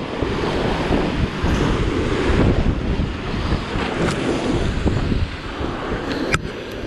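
Sea waves breaking and washing in foam over the rocks, with wind buffeting the microphone. A single sharp click near the end.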